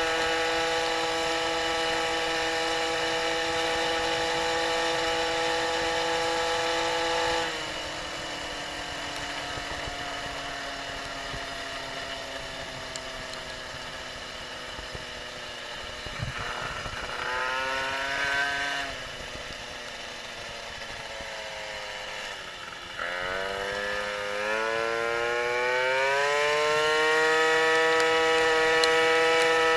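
MBK 51 moped's tuned two-stroke AV10 engine with a Doppler ER1 kit, ridden at high revs. About a quarter of the way in the throttle closes and the revs fall. There is a short rev a little past halfway, then from about three-quarters through the revs climb in a long rising sweep and hold high and steady.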